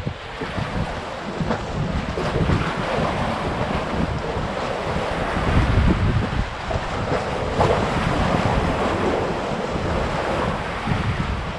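Sea waves washing and splashing against the concrete blocks of a breakwater, rising and falling in surges. Wind buffets the microphone with a gusty low rumble.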